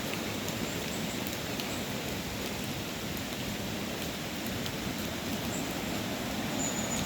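Rain pouring steadily, a constant hiss with a few sharp drop ticks here and there.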